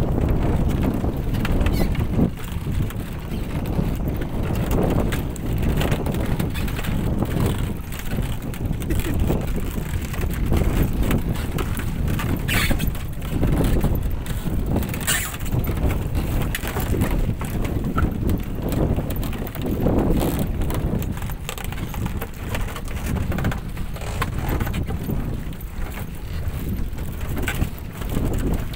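Wind buffeting a phone's microphone in a steady low rumble, with a few sharp clicks or knocks, the loudest about 12 and 15 seconds in.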